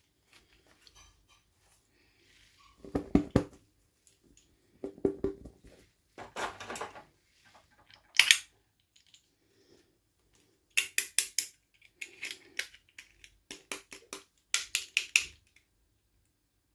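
Small plastic toy pieces and packaging handled close up: clusters of sharp clicks and taps with short rustles, in bursts a second or two apart.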